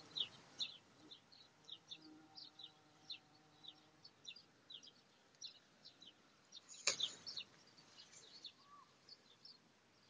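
Faint outdoor birdsong: a small bird chirping repeatedly, with short high notes about two or three times a second. A single sharp knock comes about seven seconds in.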